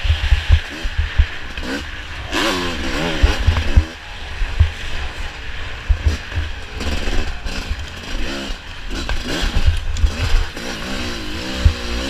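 Off-road dirt bike engine revving up and down again and again as it shifts through the gears, with heavy low buffeting on the microphone.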